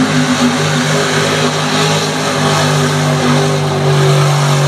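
Mud truck's engine held at high, steady revs while it drives through a mud pit.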